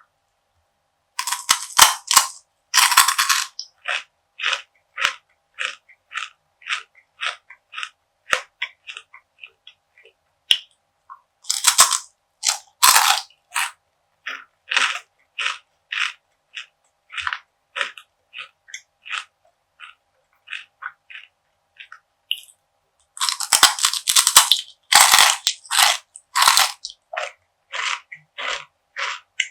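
Close-miked biting and chewing of crisp perilla seed gangjeong, a brittle of perilla seeds bound with syrup. Three loud crunching bites, about ten seconds apart, each followed by steady chewing crunches at about two a second.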